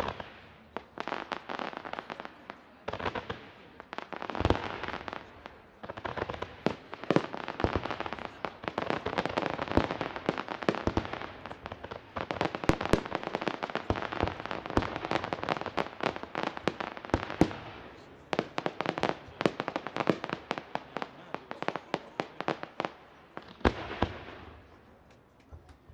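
Aerial fireworks display: a near-continuous run of bangs and crackling shell bursts, thinning out near the end.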